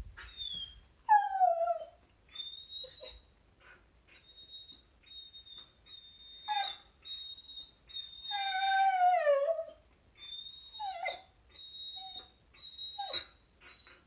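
Samoyed whining in high, tea-kettle-like whistles: many short steady squeals with gaps between, broken by several falling whimpers, the longest and loudest about eight seconds in. This is frustrated whining at a dog friend walking past the house when it is not yet time to play.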